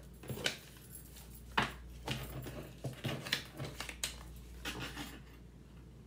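Colored paper cards being shuffled and laid out by hand on a table: irregular rustles and light slaps that die down about five seconds in.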